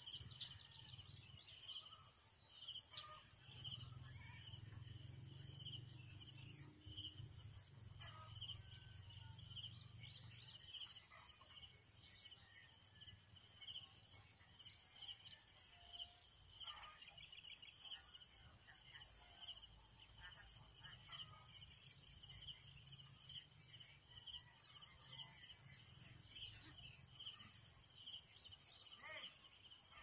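Field insects, crickets among them, trilling steadily at a high pitch. A louder pulsed chirping comes in short bursts every couple of seconds.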